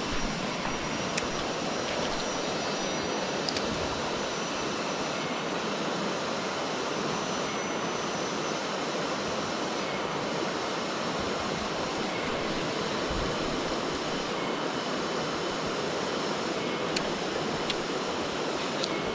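Rapids of a clear jungle river rushing steadily, an even wash of water noise, with a few faint ticks.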